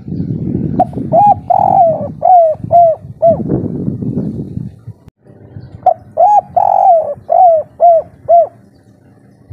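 Spotted dove (tekukur) singing its 'kuk 3' cooing song twice, each phrase a run of about six arched, rising-and-falling coo notes, the third note the longest. A low rumbling noise lies under the first phrase.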